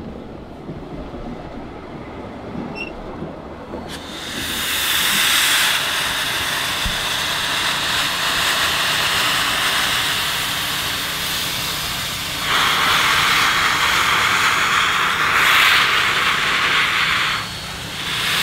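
Canadian Northern 2141, a 1912 2-6-0 steam locomotive, blowing steam from its cylinder drain cocks: after a low rumble, a loud steady hiss comes in about four seconds in, grows louder partway through and dips briefly near the end.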